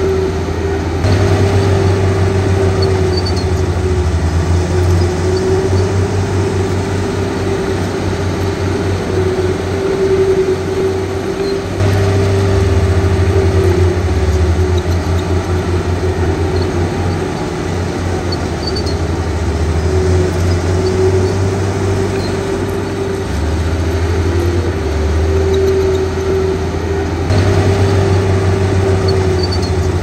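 Komatsu crawler bulldozer's diesel engine running under load while pushing dirt. The engine note steps up and down a few times, with a steady whine riding over it.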